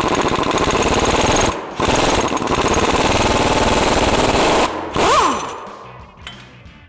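Impact wrench with a 19 mm socket hammering as it unwinds the screw of a handheld coil-spring compressor, releasing the tension on a new front coil spring. It runs in two long bursts with a short break about a second and a half in, then gives a brief last burst with a whine about five seconds in.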